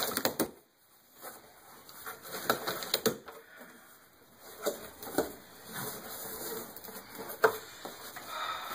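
Cardboard shipping box being opened and handled by hand: flaps pulled back and packing papers shuffled, giving scattered knocks, scrapes and rustles with short pauses between them.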